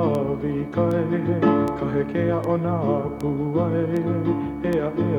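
Background music: plucked guitar over bass notes that change about every half second, with a wavering melody line above.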